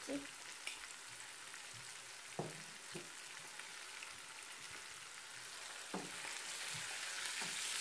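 Onions and spices frying in oil in a non-stick pan, a steady sizzle with a few light knocks. Near the end a spatula starts stirring and the sizzle grows louder.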